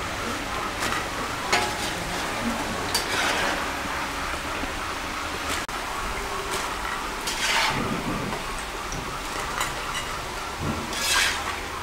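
Potato fries sizzling in hot frying oil in a pan, with a metal slotted spatula scraping and clinking several times as batches of fries are lifted out.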